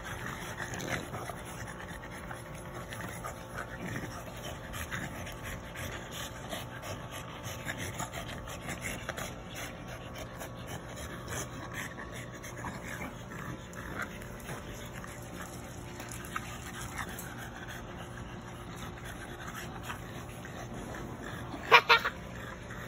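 French bulldogs playing together, with dog sounds throughout at a low, steady level. Near the end come two quick sharp sounds close together, the loudest in the stretch.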